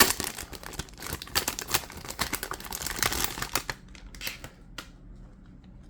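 A deck box that feels taped shut being worked open by hand: dense scratching, crinkling and clicking for about three and a half seconds, then a few scattered clicks.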